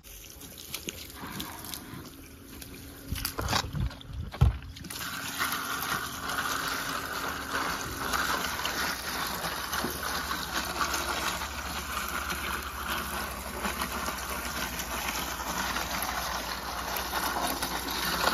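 Water from a garden hose pouring onto ice cubes in a plastic cooler: a steady splashing hiss that starts about five seconds in. Before it, a few knocks and one loud thump.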